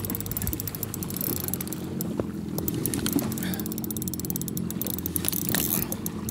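Fishing reel clicking in quick runs as a hooked fish is brought up, over the steady low hum of a jet ski engine idling.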